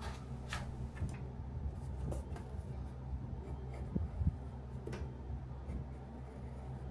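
Drawing strokes on a sheet of paper laid over a light box pad: faint scratching with a few light taps, over a steady low hum.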